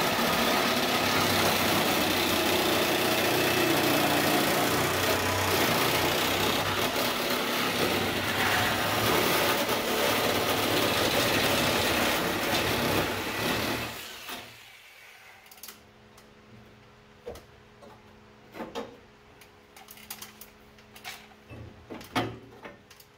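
Handheld electric power saw cutting through the rusted sheet-metal floor and rocker of a 1978 Ford F-150 cab, a steady buzzing cut that stops about 14 seconds in. After that come light metallic clinks and knocks as the cut sheet metal is handled.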